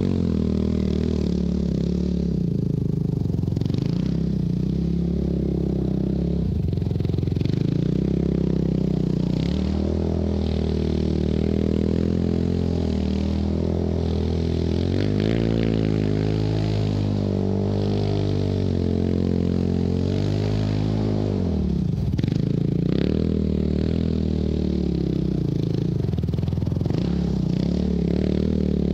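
2004 Yamaha YFZ450 quad's single-cylinder four-stroke engine being revved up and down over and over as it is ridden on ice and snow. Short hissing bursts of snow sprayed by the tyres come and go.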